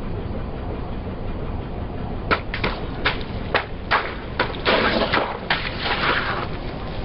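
A car tyre rolling over and crushing something crunchy, with the car's engine running low and steady. About two seconds in come a series of sharp cracks and crunches, denser crackling around the middle, then scattered snaps.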